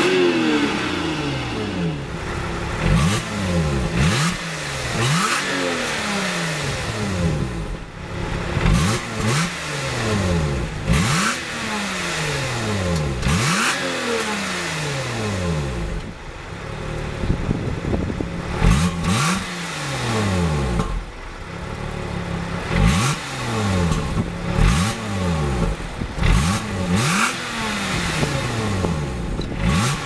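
Lotus Evora S's supercharged 3.5-litre V6 revved repeatedly while the car stands still, its exhaust note rising and falling in quick blips every second or two. The note is melodic, with a touch of supercharger whine.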